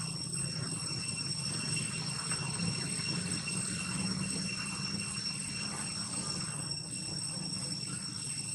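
Steady outdoor background: a continuous high-pitched insect tone with a low, even hum beneath it, with no calls or knocks standing out.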